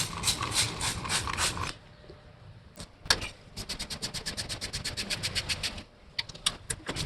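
Ratchet wrench clicking in quick, even runs of about seven clicks a second: two longer runs with a pause between, then a few single clicks near the end.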